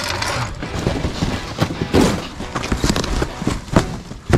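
A rapid, irregular series of sharp knocks and clicks, like hard objects being handled, with the loudest knocks about two seconds in and just before the end.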